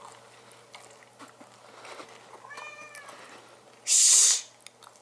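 A pet cat meows once, about two and a half seconds in. About a second later comes a short, loud hissing noise.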